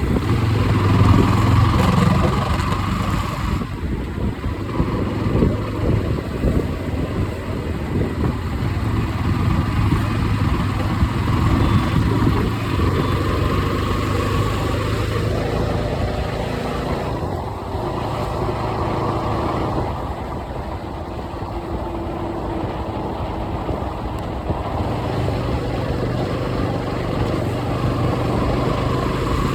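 Jawa 42 motorcycle's single-cylinder engine running, its note shifting up and down several times as it is ridden or revved.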